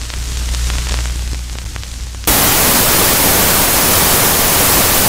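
Glitching television signal effect: a low electrical hum with scattered crackling clicks, then about two seconds in a sudden jump to loud, steady TV static hiss.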